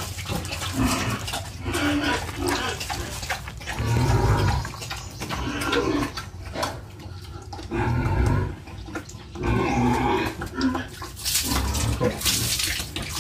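A sow in heat grunting repeatedly in short bouts. Near the end, water poured from a dipper splashes over her hindquarters.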